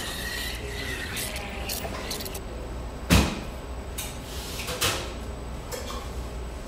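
Coffee shop ambience: a steady low room hum with scattered clinks and clatters, and a loud knock about three seconds in, followed by a lighter clatter near five seconds.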